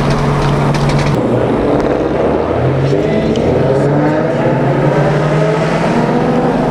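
V8 car engine running hard, with its pitch climbing steadily from about three seconds in as the car accelerates.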